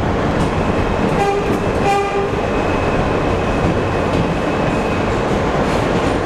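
NYC Subway train running through a tunnel, a steady loud rumble of wheels on the track. About a second in, the train's horn sounds two short toots. A faint high whine follows for a few seconds.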